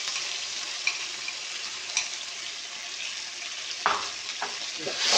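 Blended spice paste and sliced ginger frying in hot oil in a pot, a steady sizzle. A few short light knocks sound over it, about four in all.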